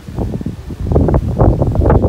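Wind buffeting the phone's microphone: a loud, gusty rumble with ragged rustling that grows stronger about a second in.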